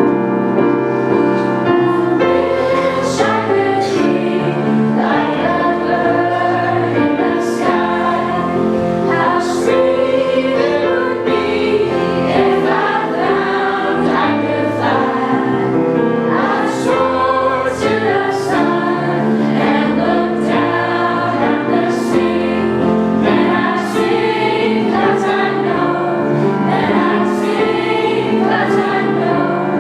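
A group of students singing together as a choir, many voices holding and moving through sustained chords.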